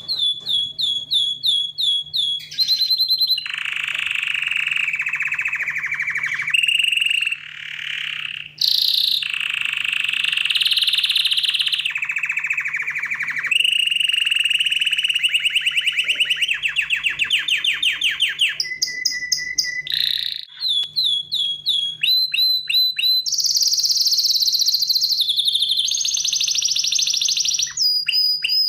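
Parrots chattering without pause: fast strings of repeated chirps and buzzy trills, with short whistles mixed in.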